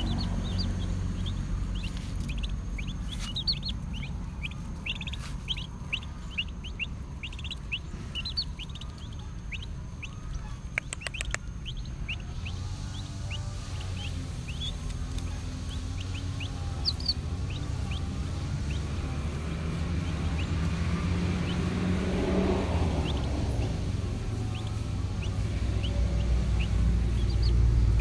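Chicks peeping: many short, high peeps, densest in the first dozen seconds and sparser after, as they peck at rice held out by hand. A low rumble runs underneath and grows louder near the end.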